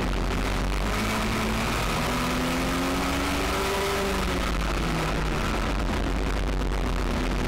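U.S. Legend car's Yamaha four-cylinder motorcycle engine running at race speed, its pitch rising and falling as it accelerates and lifts.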